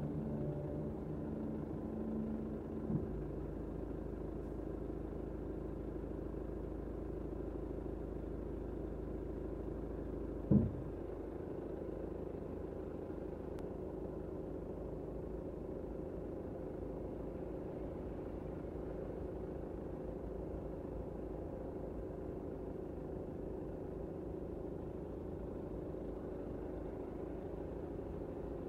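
Car running with a steady engine and road noise, with a single short thump about ten and a half seconds in.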